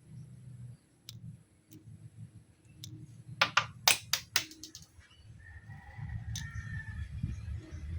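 A quick run of five or six sharp clicks about three and a half seconds in, with a few fainter single clicks before, over a low steady rumble that swells near the end.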